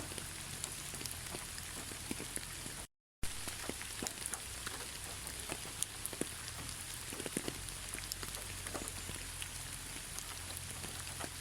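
Steady rain falling, a constant hiss with many separate drops tapping sharply. The sound cuts out completely for a moment about three seconds in, then resumes.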